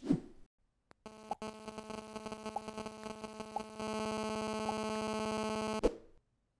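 Motion-graphics sound effects: a short falling whoosh, then a click and a steady electronic buzz dotted with four light pings. The buzz grows louder about halfway through and cuts off with a click near the end.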